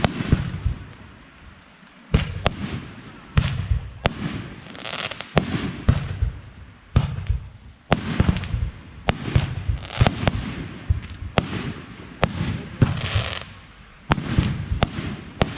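Fireworks show: aerial shells bursting about once a second, each sharp bang followed by a hiss and a low rumble.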